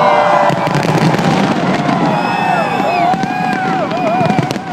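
Fireworks display going off with bangs and crackling over a shouting crowd. From about halfway through, several shrill whistles glide and wobble up and down in pitch.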